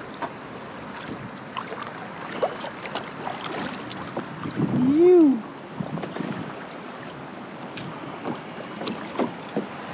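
Shallow river riffle gurgling and splashing around a kayak's hull as it runs downstream, with one short voiced call about five seconds in.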